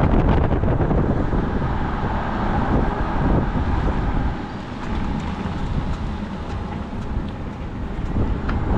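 Steady road and wind noise inside the cabin of a moving BYD Sealion 6 electric SUV, with a few faint, irregular clicks, the unusual new noise the owner is asking about.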